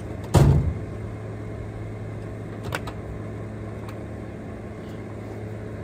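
Steady low mechanical hum, with one sharp thump about half a second in and a few light clicks near three seconds.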